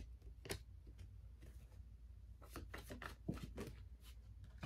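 Faint rustling and soft clicks of tarot cards being handled and shuffled, the clicks clustering about two and a half to three and a half seconds in.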